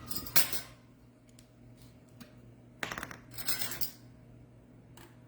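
Sharp metallic clinks of kitchen utensils while a tablespoon of balsamic vinegar is measured out: one about half a second in, then a quick cluster about three seconds in.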